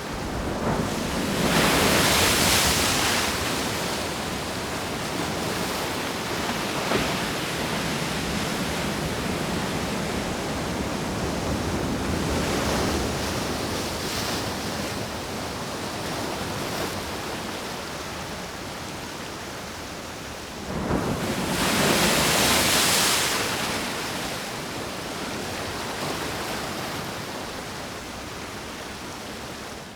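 Ocean waves washing on a shore: a steady rushing, with two big waves swelling and breaking, one near the start and one about two-thirds of the way through, and smaller surges between.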